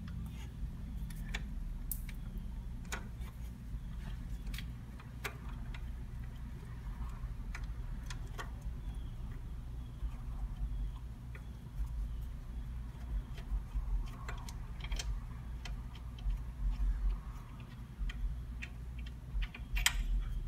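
Hand ratchet clicking in irregular runs while a 15 mm AC belt tensioner bolt is backed out, with scattered sharp metallic clicks over a low steady hum.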